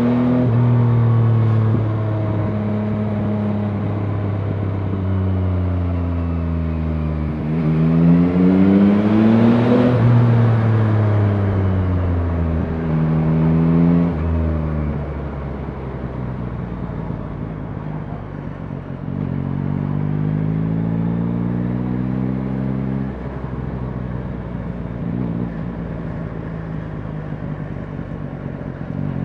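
Yamaha MT-09's 890 cc inline three-cylinder engine heard from the saddle while riding, shifting through the gears. It pulls with the note climbing about seven to ten seconds in, falls away as the rider backs off, then runs lighter with another short rise later on.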